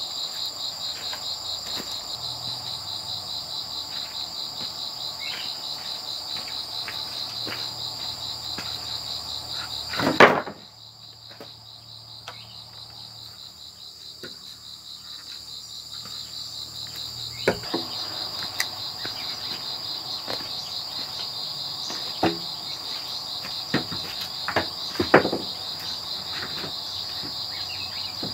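A steady, fast-pulsing, high-pitched insect chorus, with scattered knocks of bamboo poles and wood being handled. A loud knock comes about ten seconds in, after which the insect sound drops out for several seconds before returning.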